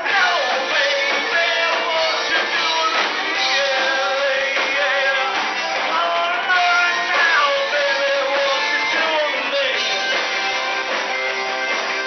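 Live rock and roll band playing loud, with electric guitar, drums and a singer carrying the melody.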